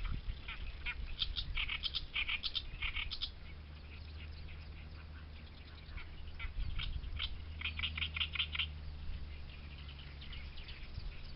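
Reed warbler singing: phrases of harsh, rapidly repeated chattering notes with short pauses between them, over a steady low rumble.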